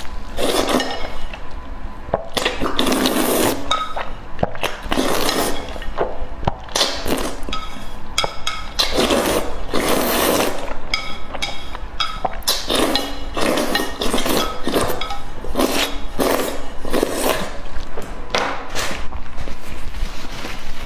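Close-miked eating sounds: irregular wet chewing and slurping, with utensils clicking and clinking against the dishes.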